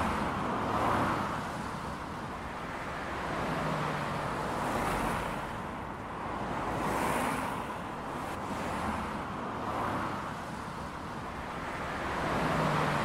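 Road traffic noise: a steady wash of passing cars and trucks that swells and eases every few seconds as vehicles go by.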